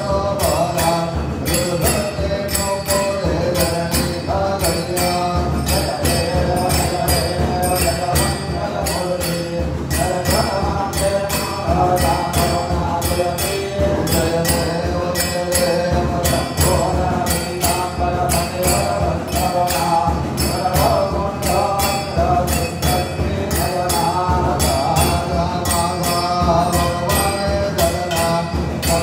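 Devotional aarti sung by voices over a steady, fast beat of jingling percussion.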